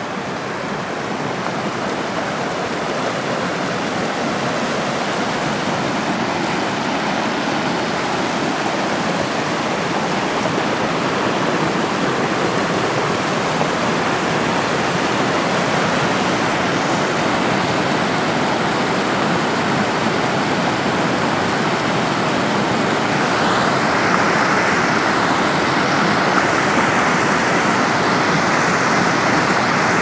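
Rushing mountain stream cascading over rocks and small waterfalls, a steady noise of water. It gradually gets louder, and is loudest in the last several seconds.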